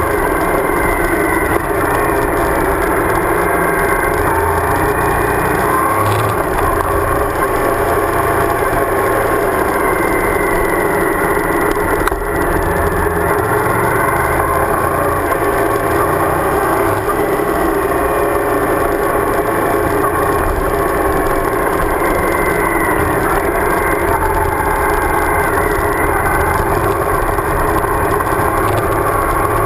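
Suzuki V-Strom DL1000's V-twin engine running under way. Its pitch rises and falls gently with the throttle over a steady rush of wind and road noise.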